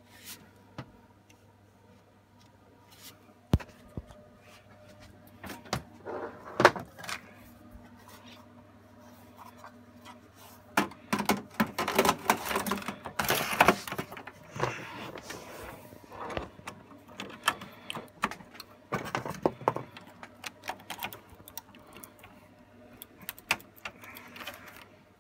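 Cables and plugs being handled at the back of a server tower: scattered clicks, knocks and rustling, with a sharp click about six and a half seconds in and a busier stretch of clatter in the middle.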